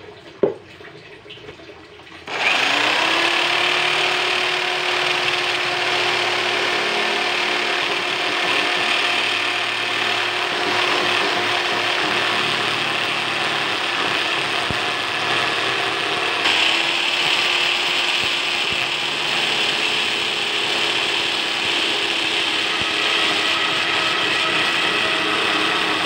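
Corded electric drill with a step drill bit, starting about two seconds in and running steadily as it cuts into the wall of an old bucket; it briefly stops and spins up again about halfway through.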